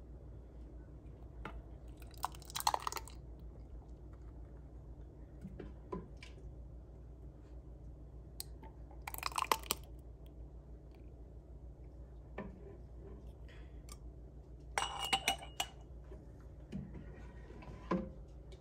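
Jam being ladled through a stainless steel canning funnel into glass jars: three short bursts of clinking and scraping as the ladle, funnel and jars knock together, with a few softer taps between.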